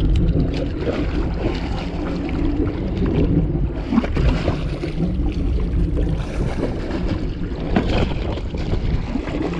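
Boat engine idling steadily, with wind buffeting the microphone and water sloshing against the hull.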